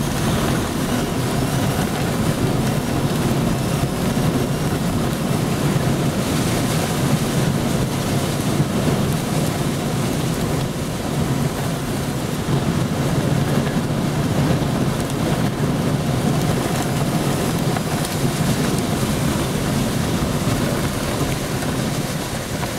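Hurricane Irene's wind blowing hard and without let-up, a dense low rushing rumble with wind buffeting the microphone, in gusts of around 55 to 70 mph.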